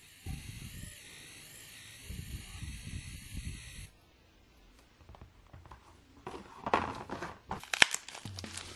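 A steady hiss with some low handling rumble, which cuts off about four seconds in; then thin plastic cling film crinkling as it is handled and peeled from a phone, growing louder near the end.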